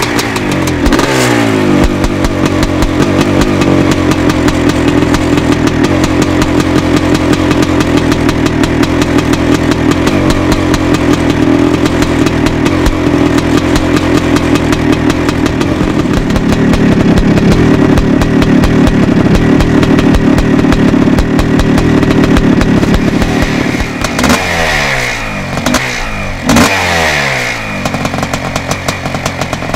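1987 Yamaha YZ490's two-stroke single-cylinder engine running and being revved. The revs fall away about a second in, run higher and louder through the middle, then it is blipped three times in quick succession near the end, each blip dropping back.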